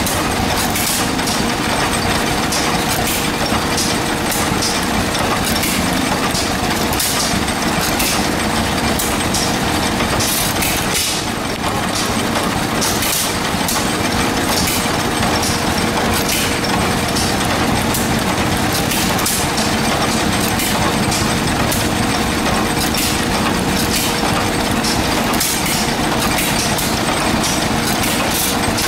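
Antique single-cylinder stationary gas engines, a Jaeger Machine Co. engine and a John Deere among them, running together. Sharp exhaust pops come about once a second, irregularly spaced, over a steady mechanical clatter and hum.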